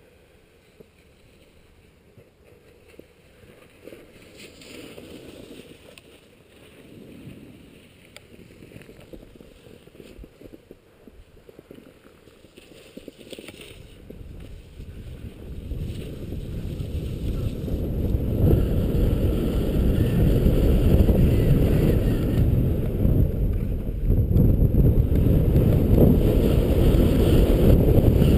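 Wind buffeting the microphone with the hiss and scrape of skis on packed snow as a skier runs downhill; faint at first, then much louder from about halfway as the skier picks up speed.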